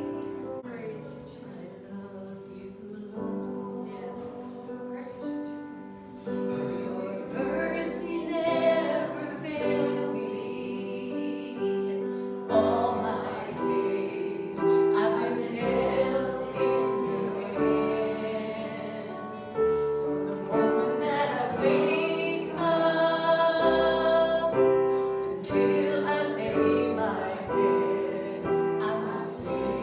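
Church music: singing with piano accompaniment, in sustained notes that grow louder after a few seconds.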